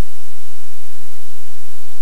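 Steady, loud static hiss, even and unchanging, with nothing else on top of it.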